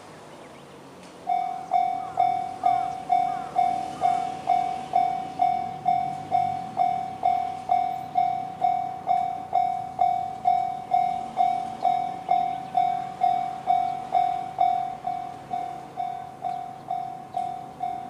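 Japanese railway level-crossing electronic warning bell with the JR standard tone. It starts about a second in and rings an even, pitched ding about twice a second, signalling an approaching train, and is slightly quieter in the last few seconds.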